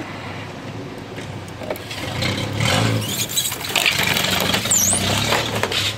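Car engine heard from inside the cabin, pulling harder from about two seconds in, with the body and loose interior rattling and clattering as the car drives over rough, uneven forest ground. There is a brief high squeak near the end.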